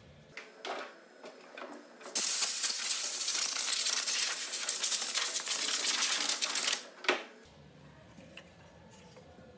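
Compressed-air blow gun on a shop air hose hissing in one steady blast, blowing sawdust off a sanded wooden frame; it starts abruptly about two seconds in and cuts off sharply after about four and a half seconds. A few light knocks come before and just after the blast.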